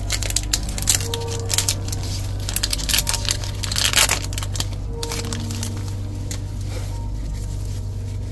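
Trading card booster pack wrapper being crinkled and torn open: a quick run of crackles and snaps, loudest about four seconds in, then quieter.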